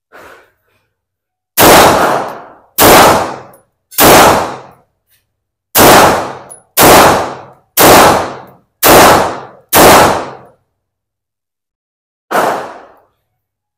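Eight shots from a Walther Q5 Match Steel Frame Pro 9mm pistol, fired about one a second with a short pause after the third, each with a brief ringing decay. A quieter bang follows near the end.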